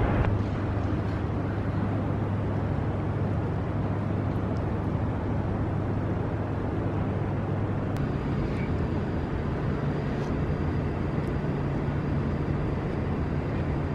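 Steady city street noise: traffic rumble with a low engine hum that steps up in pitch about eight seconds in.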